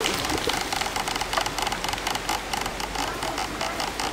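Whole chickens on a spit over hot charcoal, sizzling and crackling as oil is basted onto them and drips onto the coals: a dense, irregular crackle over a steady hiss.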